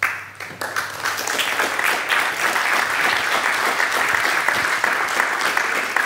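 Audience applauding. The clapping starts suddenly, swells over about the first second, then goes on steadily.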